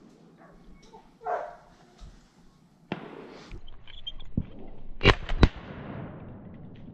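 Two 12-gauge shotgun shots fired in quick succession, about a third of a second apart, a little past five seconds in.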